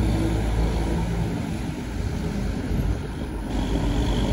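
Low, steady rumble of a tour bus's engine and tyres on the road, with no horn sounding.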